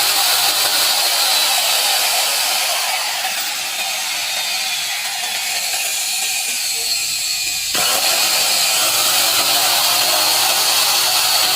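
Dongcheng FF-110 handheld stone cutter's electric motor running at speed, a steady high whine over a harsh mechanical noise, with an abrupt change in the sound about eight seconds in. The machine sparks inside because its rotor's commutator has burnt.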